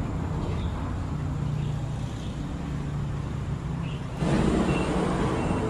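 An engine idling with a steady low hum. About four seconds in, a louder rushing noise starts suddenly and carries on.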